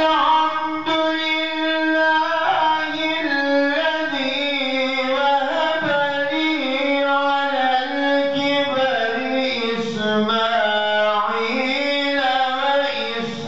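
A man reciting the Quran in melodic Turkish tilawat style, chanting one long ornamented phrase on a single breath. The pitch winds down in small steps and lifts again near the end.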